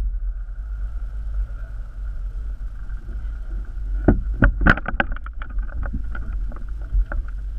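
Steady propeller hum of a camera drone over a low wind rumble on its microphone. A quick run of sharp clicks comes about four to five seconds in.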